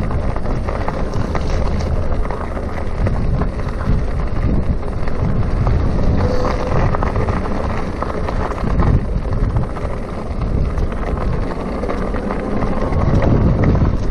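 Wind buffeting the microphone of a chest-mounted camera on a moving electric bicycle, a steady low rush with the bike's tyre and road noise underneath.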